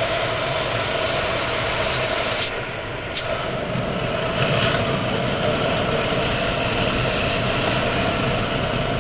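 Cabin noise of an unmarked Saab 9-3 2.0t police car driven at about 200 km/h: a steady mix of engine, tyre and wind noise. Two short sharp clicks come between two and three and a half seconds in.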